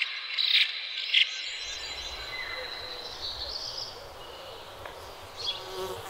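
A steady high-pitched insect drone, with short bird chirps over it during the first second or so. About a second and a half in, a low rumble comes in, and the insect tone fades out by about three seconds, leaving a few faint chirps.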